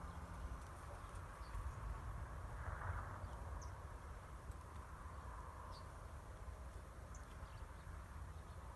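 Faint, calm outdoor ambience with a steady low rumble and a few short, high bird chirps scattered throughout.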